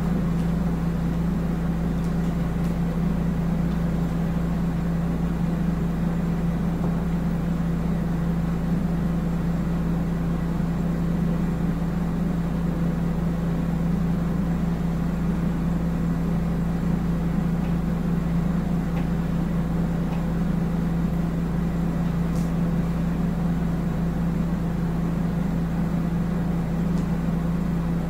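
FoodSaver vacuum sealer's pump motor running with a steady, even hum as it draws the air out before sealing.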